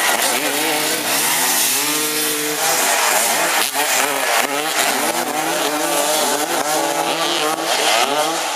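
Several racing engines at once, revving up and down in pitch as they run past.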